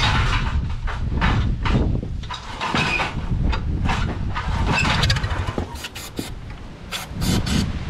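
1930 Ford Model AA four-cylinder engine firing unevenly on starting fluid. Irregular sharp pops sound over a low rumble, and it eases off somewhat after about five seconds.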